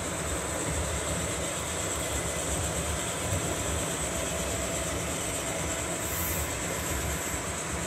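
HO scale model freight train rolling past, its cars' wheels running on the track in a steady, even rolling noise.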